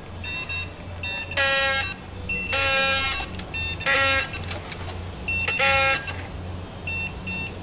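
Impact wrench running the wheel bolts in, in a series of short pitched bursts: four longer ones of about half a second with quicker blips between. A steady low hum runs underneath.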